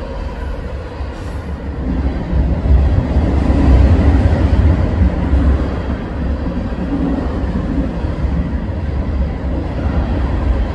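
Freight train rolling past close by: tank cars and autoracks clattering over the rails in a heavy, steady low rumble, swelling loudest a few seconds in.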